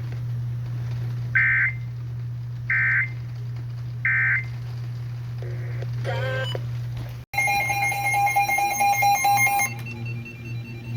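Three short bursts of warbling digital data tones, the EAS end-of-message code, over the weather radio's steady hum. After a sudden cut about seven seconds in comes a few seconds of loud, busy electronic beeping tones.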